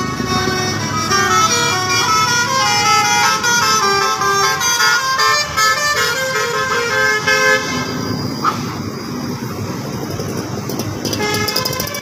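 Indonesian bus's multi-tone telolet horn playing a tune of short notes stepping up and down in pitch. About eight seconds in the tune stops and the bus's running noise takes over, with the horn tones coming back near the end.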